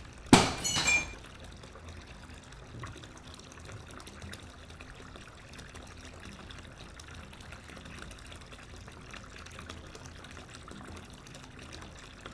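A sudden crash of glass-fronted picture frames hitting the floor and breaking, with a brief high ringing of glass, about a third of a second in. Afterwards a faint, steady trickle of water runs underneath.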